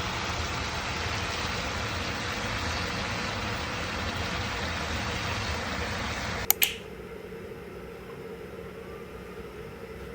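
Steady rushing noise of a moving vehicle. About six and a half seconds in it cuts off with two sharp clicks, leaving a quieter steady hum.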